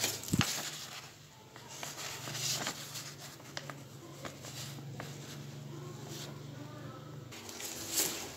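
Paper rustling and crackling as a folded printed sheet is picked up from a cardboard box, unfolded and dropped back in, with a sharp crackle at the start and another near the end. A low steady hum runs underneath and stops shortly before the end.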